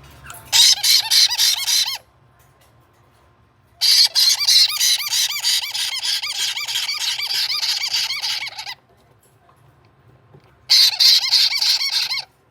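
Caique chick begging calls while being fed: three loud bouts of rapid, repeated squawking pulses, the middle one lasting about five seconds.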